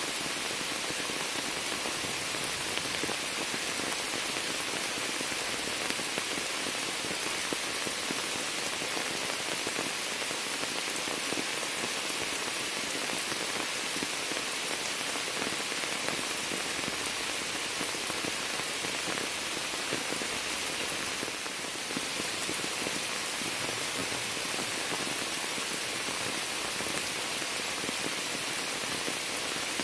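Rain falling steadily onto standing water and the leaves of a shrub: a dense, even hiss of countless drops splashing.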